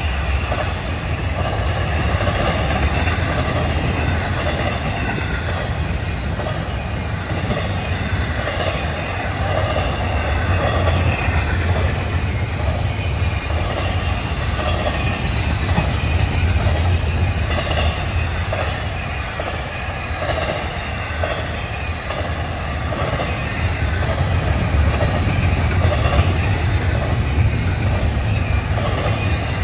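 Intermodal freight train cars carrying double-stacked containers rolling past close by. A steady low rumble of steel wheels on rail runs with a repeating clack and rises and falls slightly as the cars go by.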